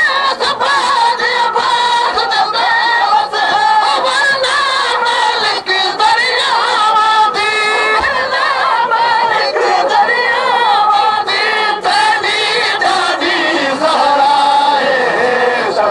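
A crowd of mourners chanting a lament for Hussain in chorus, many voices together.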